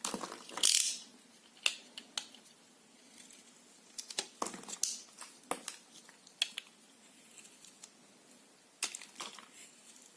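Soap being cut with a blade: a series of short, crisp scraping cuts and clicks, the longest and loudest about a second in, with more clusters of cuts around the middle and near the end.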